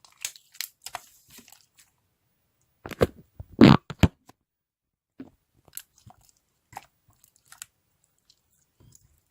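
Hands pressing and squishing slime, making scattered sticky clicks and crackling pops, with a louder cluster of squelches about three to four seconds in.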